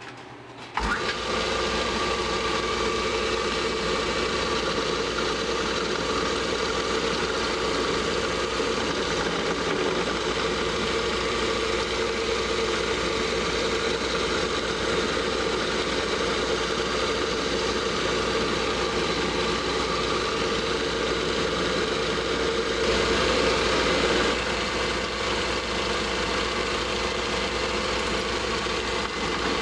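Metal lathe switched on about a second in and running steadily, turning an end mill in its headstock to mill cuts across a block. The sound grows briefly louder about three-quarters of the way through.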